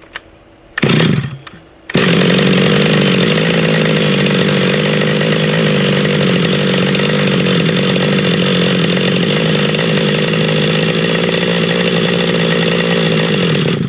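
Bergen Industrial Twin two-stroke gas engine on an RC helicopter being pull-started on half choke: a brief pull turns it over about a second in, then it catches and runs steadily with a buzzy note. The sound breaks off abruptly at the end.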